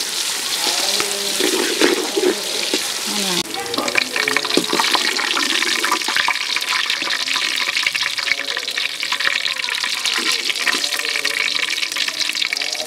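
Sliced onions deep-frying in oil in a large aluminium pot, sizzling steadily, with a steel ladle scraping and clicking against the pot as the onions are stirred and lifted out. The onions are fried brown and crisp.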